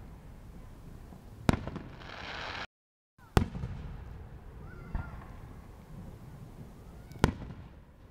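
Fireworks bursting overhead: four sharp booms about two seconds apart, the first followed by a crackling fizz. The sound cuts out for a moment just before the second boom.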